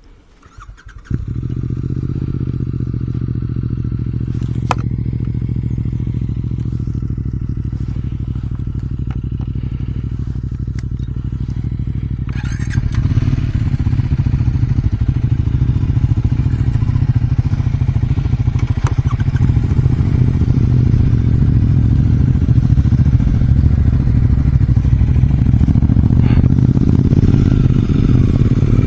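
Triumph Scrambler 400 X's single-cylinder engine running, heard through its exhaust. It comes in suddenly about a second in, runs steadily, and grows louder about halfway through.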